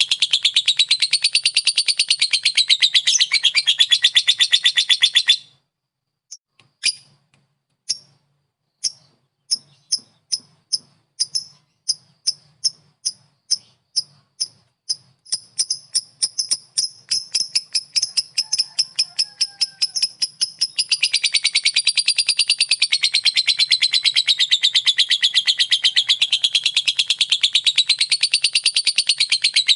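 Lovebird ngekek: a long, fast chattering trill of high, sharp notes. It breaks off about five seconds in, then starts again as slow single chirps that speed up into a dense, unbroken trill in the last third.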